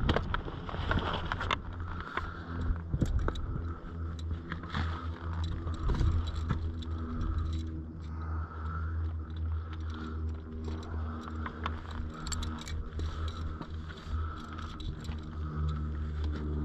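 Abseiling gear in use: karabiners and the belay device clinking and the rope scraping through as it is fed by hand, with boots scuffing on granite, over a steady low rumble of wind on the microphone.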